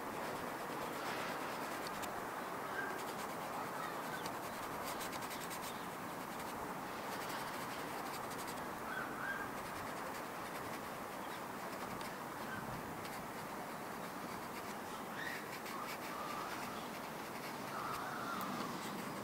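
Soft pastel stick scratching and rubbing across textured paper in steady strokes, with a few short bird calls scattered through it.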